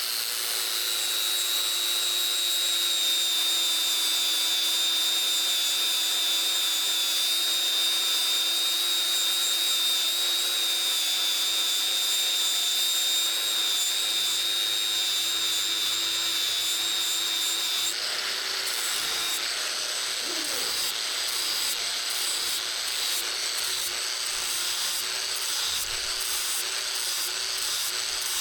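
Electric power tool spinning up and running with a steady high whine. About two-thirds of the way through, the sound turns rougher and pulsing, as under changing load.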